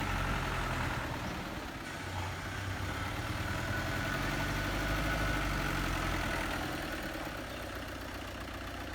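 Heavy engine running steadily at idle with a deep, even hum that swells slightly midway, with a faint high whine above it.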